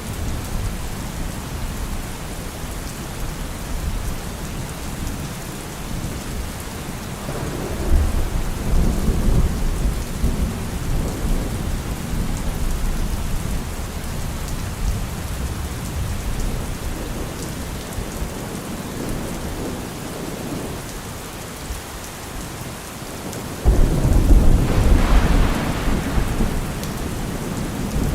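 Steady rain falling, with rolls of thunder: a low rumble swells about eight seconds in, and a louder rumble breaks in suddenly near the end and rolls on for a few seconds.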